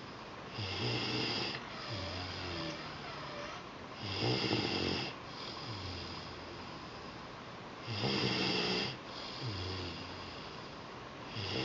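A child breathing with a deep snoring sound, each breath a louder, roughly one-second snore followed by a longer, quieter one, about every four seconds. Two weeks after a second supraglottoplasty, this deeper snore has replaced his typical stridor.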